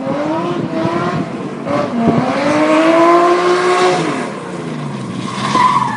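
BMW E21's three-litre engine revving hard. The engine note climbs steeply about two seconds in, holds high for a couple of seconds, then falls back.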